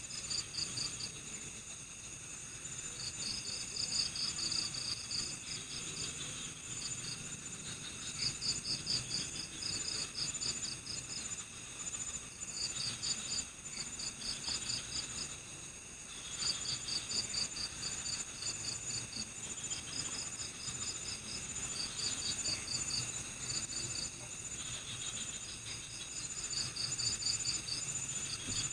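Night-time forest chorus of crickets and other insects: a steady high continuous trill, with several insects layered underneath, and over it a louder rapid pulsed chirping that comes in bouts of a second or two every few seconds.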